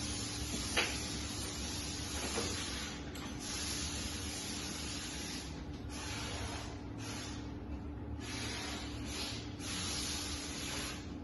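Hissing spray in bursts: one long hiss of about five seconds, then four shorter bursts of about a second each, with a sharp click about a second in.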